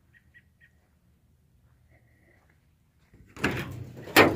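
A utility truck's service-body compartment door being opened. A loud clunk of the latch comes a little past three seconds in, then a sharper bang near the end as the door swings open.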